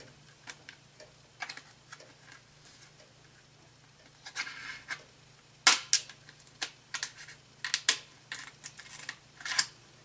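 Stiff clear plastic clamshell package crackling and clicking as it is flexed and pried at by hand. Scattered sharp clicks, sparse at first and louder and busier in the second half.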